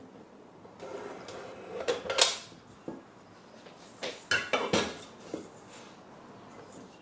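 Kenwood Chef stand mixer being handled. There is a clatter about two seconds in, then a stainless steel mixing bowl clanks and scrapes as it is set down and seated on the mixer's base. The motor is not running.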